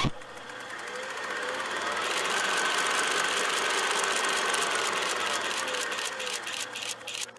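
Film projector running: a steady mechanical whirr with rapid, even clicking that fades in over about two seconds and cuts off suddenly.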